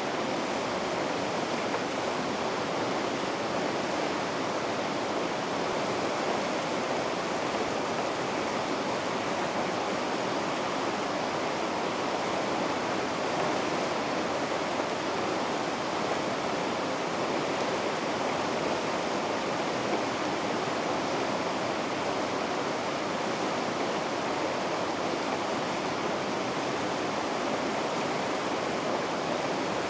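Rapids of a river rushing steadily, an even, unbroken wash of white water.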